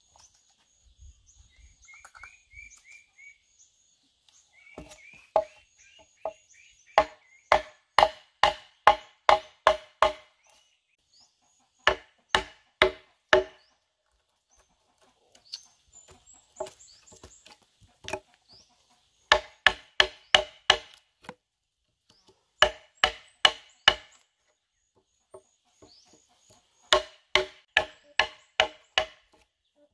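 Wooden mallet striking a steel chisel driven into a wooden beam: runs of sharp knocks about two a second, broken by short pauses.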